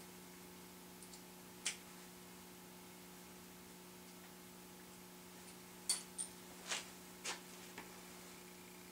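Quiet room tone with a steady low hum, broken by light clicks and taps of handling metal tools and drill press parts: one near two seconds in and a scattered handful in the last few seconds.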